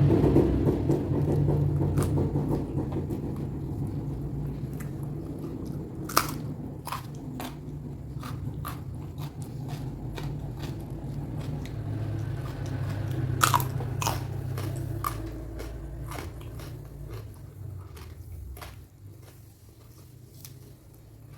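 A person chewing food close to the microphone, with scattered sharp crunching bites; the loudest crunches come about six seconds in and again about thirteen seconds in. The chewing grows quieter toward the end.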